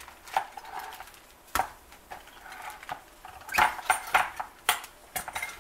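Wooden tortilla press being closed and pressed down on a ball of masa: a handful of sharp wooden knocks and clacks from the hinged boards and handle, with the plastic lining rustling between them.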